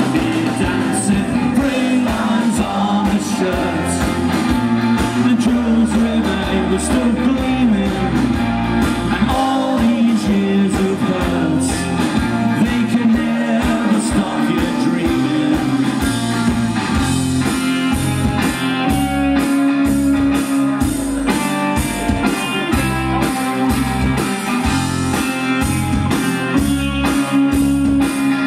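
Live rock band playing loudly through a PA: electric guitars, bass and drums with a voice singing.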